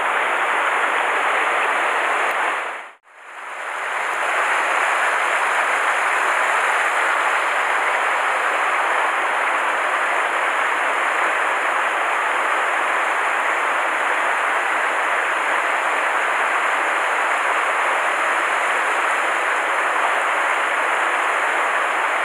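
Mountain stream rushing over a small cascade: a steady hiss of flowing water. About three seconds in it fades to silence and returns within a second.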